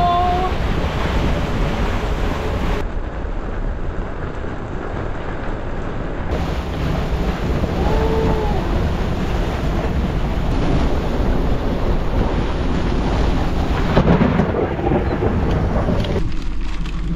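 Storm wind of about 55 knots blasting across a sailboat, buffeting the microphone into a heavy low rumble, with rain and rough sea beneath it.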